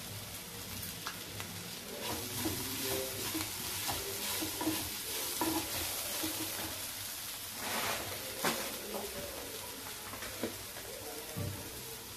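Sliced spiny gourd and onions sizzling in oil in a kadhai over a high gas flame, stirred and scraped around the pan with a wooden spatula. A couple of sharper knocks of the spatula against the pan come about two-thirds of the way through.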